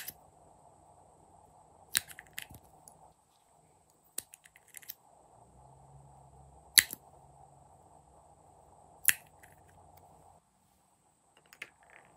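Sharp plastic clicks and taps from small lip-tint tubes, caps and applicator wands being handled, about half a dozen single clicks a second or two apart over a faint steady hiss.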